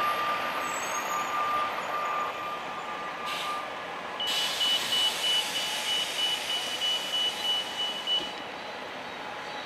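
Downtown street traffic with electronic beeping: a broken high tone over the first few seconds, then a faster, higher beeping for about four seconds over a louder passing-vehicle hiss.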